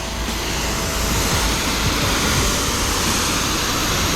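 Pressure washer spraying water, a steady rushing hiss that grows a little louder about a second in.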